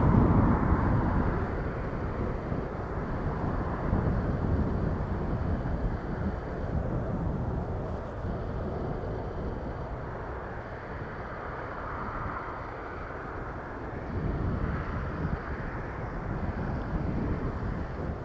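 Jet airliner engine noise, a steady rumble that swells and eases, mixed with gusting wind buffeting the microphone.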